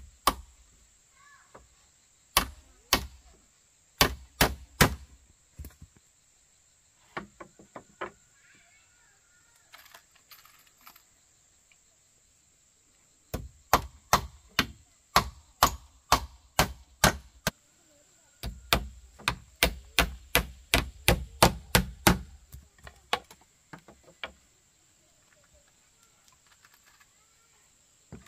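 Hammer striking nails into the wooden poles of a coop wall: runs of sharp wooden knocks that speed up to about three blows a second in the middle and stop well before the end. A steady high-pitched insect drone carries on underneath.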